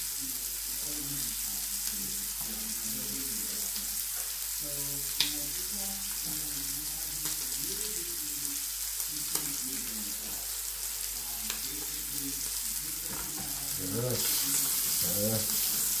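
A chop sizzling as it fries in melted butter in a frying pan: a steady hiss that grows louder about two seconds before the end as the chop is worked in the pan. There is a single sharp click about five seconds in.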